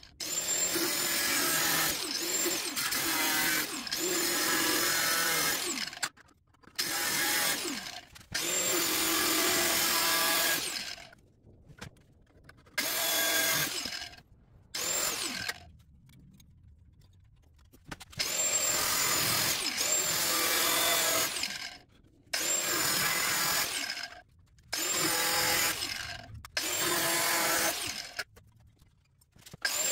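Small corded angle grinder with a cut-off disc cutting slits into the sheet-steel brake dust shield behind a car's rear rotor. It runs in about ten bursts of a few seconds each, with short pauses between them. Many bursts start with a high whine that rises as the motor spins up.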